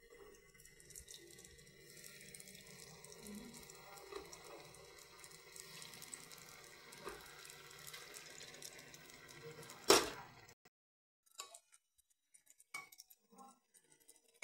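Hot oil sizzling in a pan as split red lentils are added by hand, with a sharp knock against the pan about ten seconds in. The sizzle then cuts off abruptly, leaving only a few light clicks.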